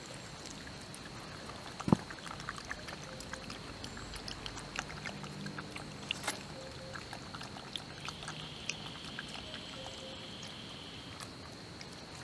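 A dog sniffing and scuffing among roots and leaf litter: scattered small clicks and rustles, with one sharp knock about two seconds in. A steady high insect whine sits behind it.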